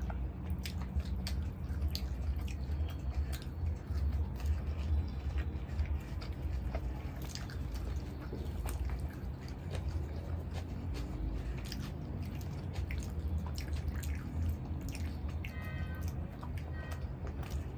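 Close-miked eating sounds: wet chewing, lip smacks and mouth clicks as naan dipped in masala chaap curry is eaten by hand, with some tearing of naan, over a steady low hum.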